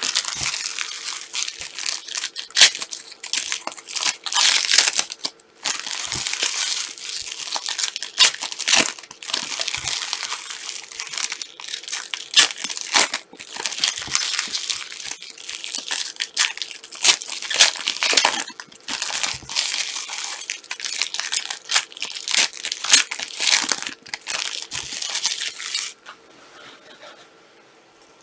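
Trading-card pack wrappers crinkling and tearing as packs are opened, in quick irregular bursts that stop suddenly about two seconds before the end.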